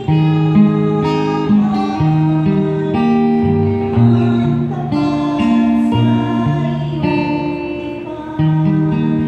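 Guitar accompaniment for a sung responsorial psalm, playing chords that change about once a second, each starting sharply and then fading.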